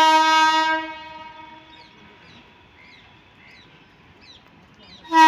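Train horn of a departing Indian Railways express: one loud, steady blast that cuts off about a second in, then a second blast that starts near the end.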